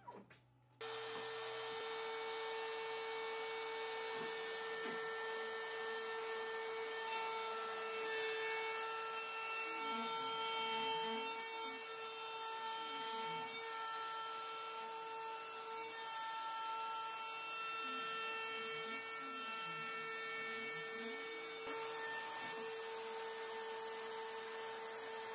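Inventables CNC router's spindle running with a steady high whine as a V-bit carves the hardwood inlay, a lower tone sliding up and down as the machine moves through the curves, twice in long stretches. A short bit of guitar music ends just under a second in.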